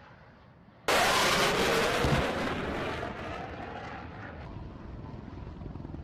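A large pyrotechnic explosion's blast arrives suddenly about a second in and rolls into a long rumble that slowly fades, with a second heavy thump about two seconds in.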